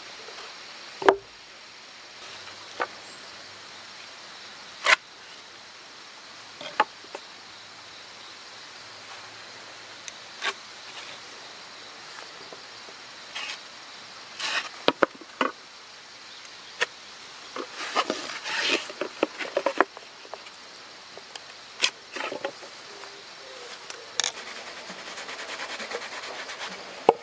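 Scattered short knocks and clicks of wooden boards and hand tools being picked up, set down and handled, the loudest about a second in, with brief clusters of scraping and rustling midway. Behind them a steady faint insect drone.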